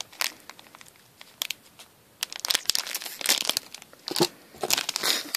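Foil blind-bag packets crinkling and crackling as they are handled and pulled at to tear them open, with scattered crackles at first, a quieter moment, then busier crinkling and a longer rustle near the end.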